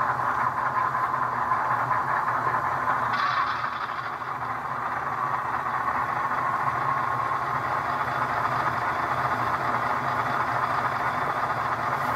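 ESU LokSound decoder in an HO-scale Rapido GMD-1 diesel model playing its prime mover start-up sound through the model's small speaker: the diesel engine running steadily, with a brief hiss about three seconds in.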